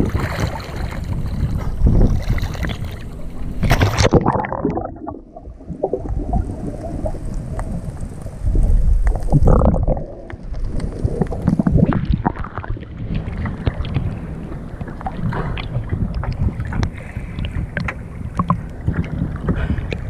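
Sea water slapping and sloshing against a waterproof action-camera housing bobbing at the surface, with many short knocks of water on the case. About four seconds in the camera dips under and the sound turns muffled.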